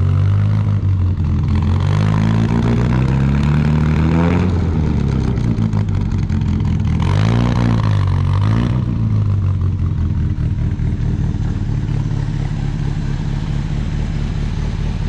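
Classic Mini's 850 A-series engine on twin carburettors, freshly rebuilt and running with the choke pulled out, exhaust through a Ferrari silencer. It is revved twice, a slow rise and fall a couple of seconds in and a shorter blip around seven seconds, then settles to a steady idle.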